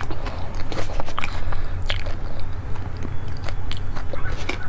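Close-miked eating sounds: biting and chewing a pink ice dessert, heard as a run of sharp, irregular clicks and crunches over a low steady hum.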